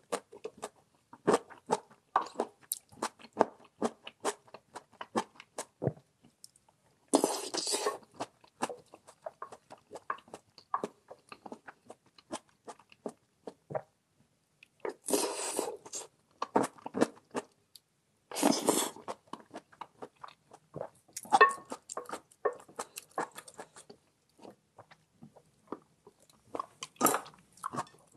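Close-miked eating: a person chewing, with frequent crunches and wet clicks. Three times a longer noisy sound of about a second breaks in, about seven, fifteen and nineteen seconds in.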